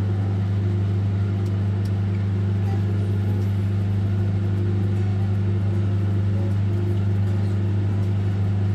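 LG microwave oven running in microwave mode with papad roasting inside: a loud, steady, even electrical hum.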